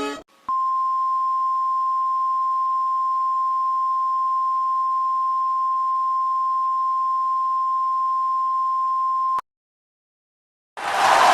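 Emergency alert attention tone: a single steady pure tone just above 1 kHz, held for about nine seconds and cutting off abruptly. After a short silence a loud hiss of noise starts near the end.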